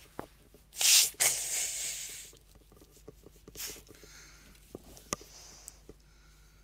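A short, loud hiss about a second in, then a softer hiss lasting about a second, followed by a brief hiss and a few light clicks and taps.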